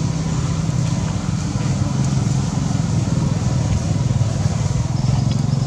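A steady low engine hum that runs without a break.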